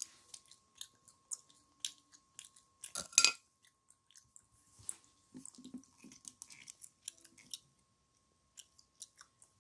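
Chewing gum with many small clicks, mixed with a clear plastic container being handled; a louder knock comes about three seconds in.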